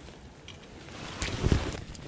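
Shallow tidepool water splashing as a bare hand grabs at a rock crab, with wind buffeting the microphone. A couple of louder splashes come between one and one and a half seconds in.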